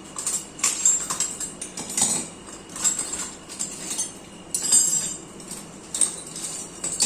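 Irregular metallic clinks and clatter, like small metal objects or tools being knocked together and handled, several strikes a second in uneven clusters.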